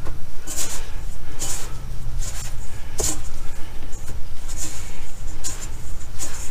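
A gloved hand working battered fish pieces through a dry flour coating in a stainless steel bowl: short rustling scrapes at irregular intervals, with one sharp click about three seconds in, over a steady low hum.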